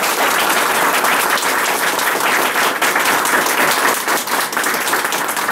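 A small group of people applauding: steady, dense hand-clapping.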